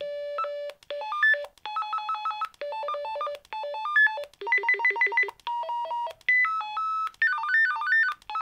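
Retevis RB628 PMR446 walkie-talkie's speaker playing its selectable call tones one after another as they are stepped through in the menu: a run of about ten short electronic beep melodies, each under a second long.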